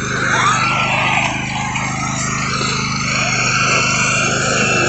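Riding lawn mower engine running at a steady speed, a low, even drone.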